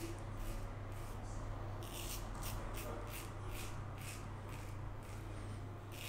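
Green Cult double-edge safety razor with a Wizamet Super Iridium blade scraping through lathered stubble in short strokes, coming about two a second from about two seconds in. A steady low hum runs underneath.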